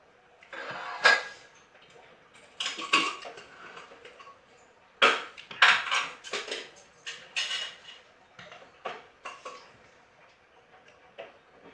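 Dishes and eating utensils clinking and clattering: a dozen or so irregular sharp knocks, loudest about a second in and in a cluster around the middle.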